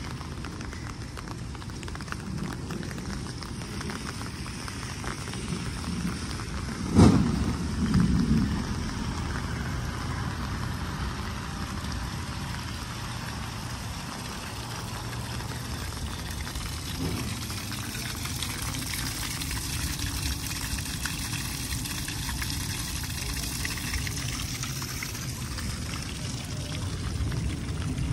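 Steady rain falling on wet pavement. A sudden sharp thump about seven seconds in, followed by a short low rumble, is the loudest sound, and a smaller thump comes about ten seconds later.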